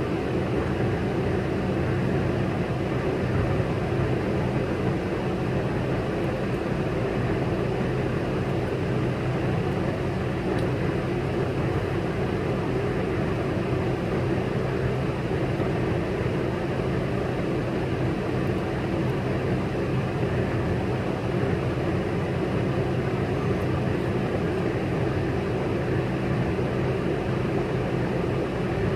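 Semi truck diesel engine idling: a steady low drone with no change in pitch or level.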